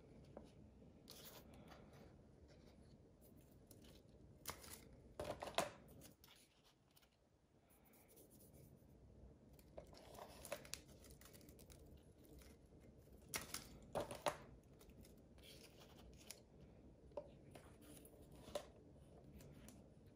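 Faint paper rustling and small taps as fern leaves and flower sprigs are handled and laid out on paper for pressing, in a few short clusters with near silence between.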